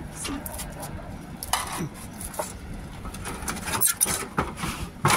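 A rusted sheet-metal chimney tray scraping and clattering against roof tiles as it is worked loose and pulled out, in a run of irregular scrapes and knocks.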